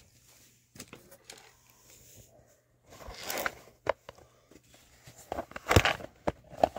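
Cardboard boxes and packaging being handled and shifted: scattered rustles, scrapes and light knocks, with the busiest, loudest handling a little before the end.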